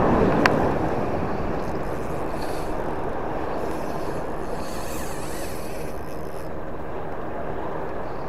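Steady rumbling outdoor noise of wind and sea, with one sharp tick about half a second in.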